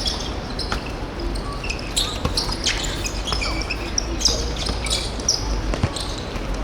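Game sounds of an indoor korfball match: players' shoes squeaking on the court floor, the ball thudding, and a few voices.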